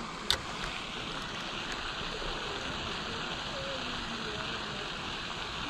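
Steady hiss of splashing water from the lake's spray fountain, with one sharp click near the start as the spinning reel is handled.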